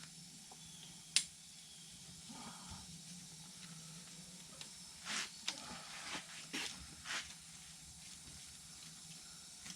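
Stiff poly net cord being worked onto an ATV nerf bar: a sharp click about a second in, then a few short scrapes and rustles of the plastic net a little past halfway, over a low steady hum.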